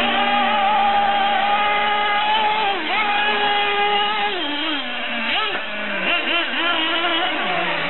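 Several radio-controlled off-road model cars running, their small engines whining at high pitch. The pitch holds steady, drops as the throttle comes off, then rises and falls quickly as the cars go through the turns.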